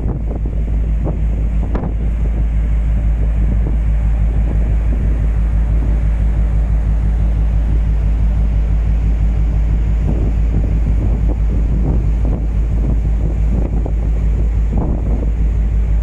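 Strong wind buffeting the microphone on the open deck of a container ship steaming at about 18 knots, with a steady low rumble underneath.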